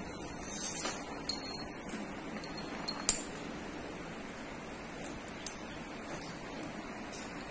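A cow's metal neck chain jingling and clinking as its head moves, a few sharp clinks standing out, the loudest about a second and three seconds in.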